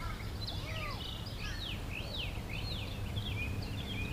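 Birds chirping and calling, with several quick falling whistles about a second and a half in, over a steady low background rumble.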